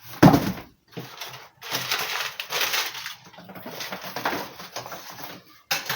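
Plastic shopping bag rustling and crinkling in uneven bursts as groceries are handled, with a sharp loud crackle about a third of a second in.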